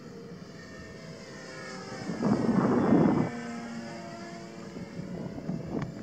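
Electric RC model plane's brushless motor and 13x8 propeller whining in flight. It grows much louder with a rushing noise for about a second, two seconds in, and the whine drops in pitch after it, as it does when the plane passes.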